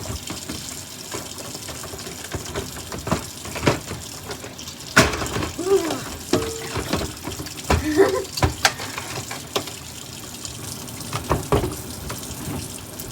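Water tap running into a sink while a small plastic water tube is rinsed under it, with several sharp knocks and clacks as it is handled.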